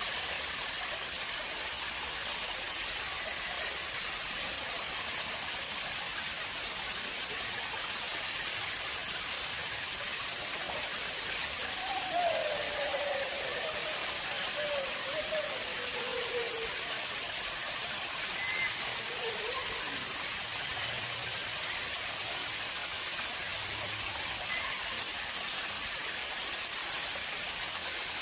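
Water flowing steadily into a man-made pond, an even rushing hiss. About twelve seconds in, a faint wavering sound drifts down in pitch for a few seconds over it.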